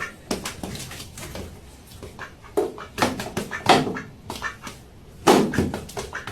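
An animal's short calls: several separate ones with pauses between.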